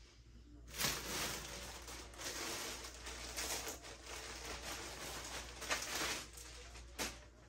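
Rustling and handling noise from clothes being sorted and handled. It starts suddenly about a second in and goes on for about five seconds, with a sharp knock near the end.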